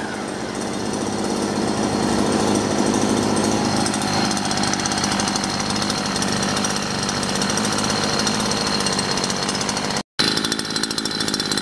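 Vito VIR43E 43 cc two-stroke brushcutter engine, newly assembled and just started, running steadily at an even speed. The sound cuts out for an instant about ten seconds in, then resumes.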